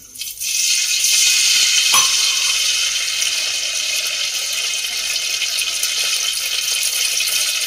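Oil sizzling steadily in a hot steel pan on the gas stove, freshly poured in; the hiss starts about half a second in.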